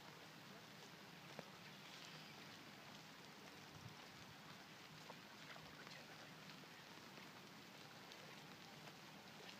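Light rain falling: a faint, steady hiss with scattered drops ticking.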